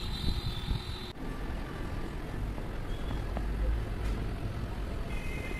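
Steady low background rumble, with a brief break about a second in.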